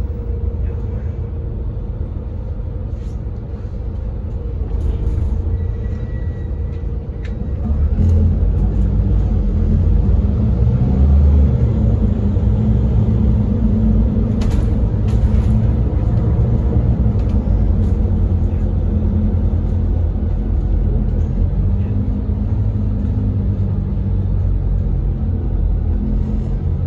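Volvo B7RLE bus's rear-mounted six-cylinder diesel engine and road rumble heard from inside the passenger cabin while the bus drives. About eight seconds in, the low rumble gets louder and heavier as the engine pulls harder, and it stays up after that.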